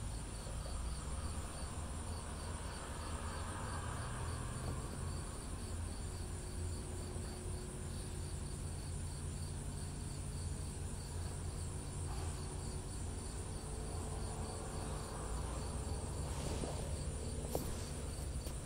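Cricket chirping at an even pace, about two chirps a second, over a steady low rumble.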